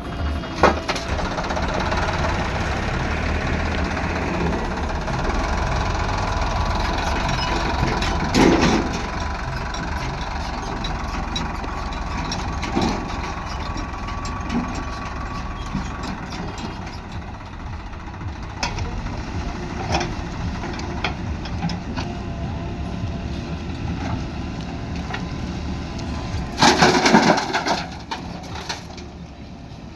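Diesel engine of a backhoe loader at work, running steadily, with a few short knocks and a loud rattling burst near the end.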